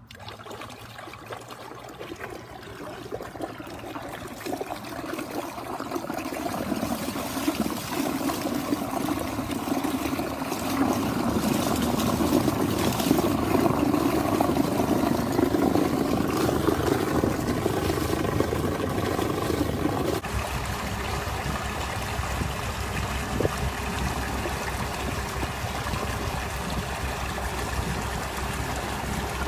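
A brushless electric outboard's propeller churns water in a plastic test tub, a loud, splashing rush that builds over the first ten seconds or so. About two thirds of the way in it changes abruptly to water rushing past the moving catamaran's hulls, with a low rumble under it.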